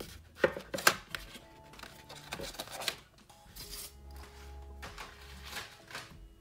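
Soft background music, with a few sharp clacks and rattles of pencils in their plastic tray as the top tray of a Prismacolor Premier colored pencil set is lifted out, loudest about half a second and a second in, with lighter rattling a little before three seconds.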